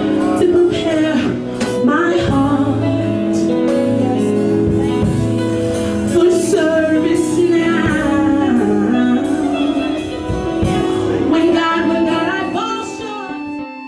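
Gospel praise-and-worship music: singers over instrumental backing that includes guitar, with the singing dropping away near the end.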